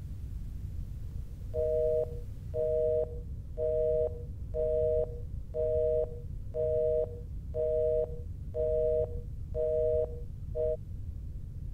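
Telephone busy tone heard in the handset after the other party hangs up: a two-tone beep about once a second, nine times, the tenth cut short, over a low steady hum.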